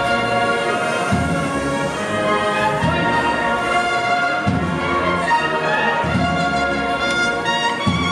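Brass band playing a slow procession march, the brass holding long sustained notes.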